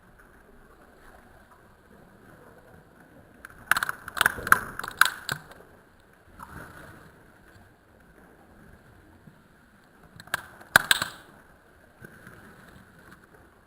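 Slime being squeezed and poked, giving two quick bursts of sharp pops and clicks, one about four seconds in and another near the eleventh second.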